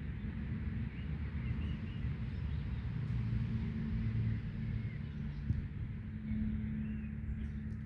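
Birds chirping faintly over a steady low rumble and hum.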